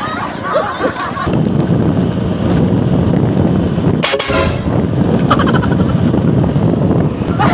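A loud vehicle horn blast about four seconds in, lasting about half a second, followed by a shorter, weaker honk, over steady engine and street noise.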